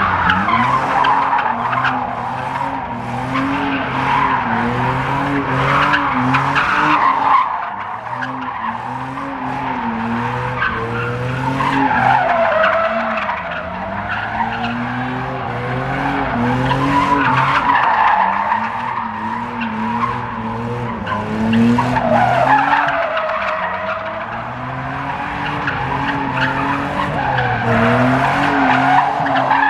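Car drifting: the engine is held at high revs that keep bouncing up and down, over a continuous tyre squeal that swells and fades every few seconds.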